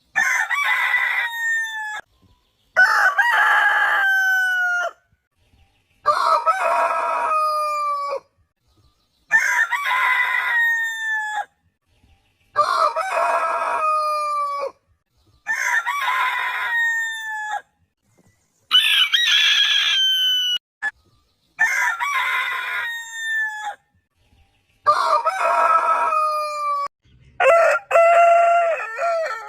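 Roosters crowing, one crow after another about every three seconds, each crow about two seconds long and dropping in pitch at its end, with short silent gaps between them. The last crow, near the end, holds a steadier pitch.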